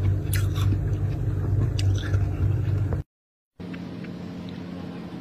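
Freezer running with a steady, pulsing low hum under crisp crunching and scraping of frost. The sound cuts out for about half a second a little after halfway through, then a quieter steady hum with faint crackles follows.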